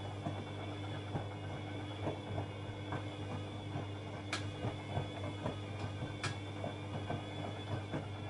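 Bosch Maxx Special washing machine running: a steady motor hum with many light, irregular knocks and two sharper clicks about four and six seconds in.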